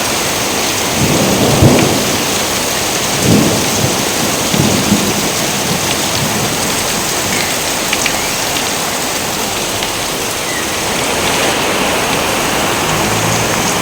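Steady heavy rain with rolling thunder. The thunder rumbles loudest between about one and two seconds in, and rolls again around three and five seconds in.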